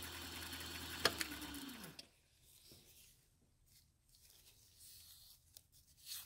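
A small milling machine's motor running steadily, then a click about a second in and a falling whine as the spindle coasts to a stop. A few faint brush scrapes near the end.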